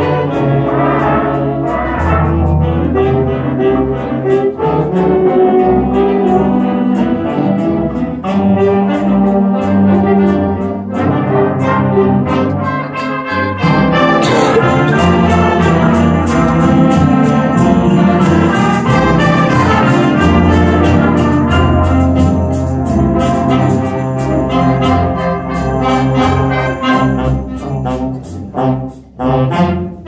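School concert band playing, trumpets and other brass to the fore over clarinets. The music breaks into short separated chords near the end.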